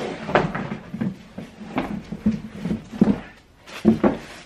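Handling noise: irregular rustling, scrapes and knocks as a chunky sneaker is fetched and picked up, with louder knocks about three and four seconds in.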